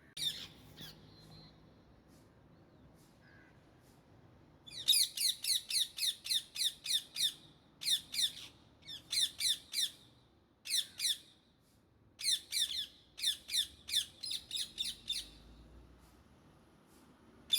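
Indian ringneck parakeets squawking: a single call at the start, then several runs of rapid, harsh repeated calls, about three a second, separated by short pauses.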